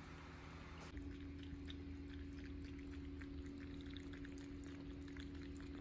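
Cat lapping water from a drinking glass: many quick, faint wet laps over a low steady hum.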